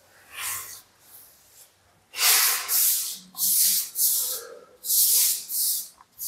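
Wide wall brush swishing on plaster as tinted primer is brushed on: a run of short scratchy strokes, about two a second, starting about two seconds in.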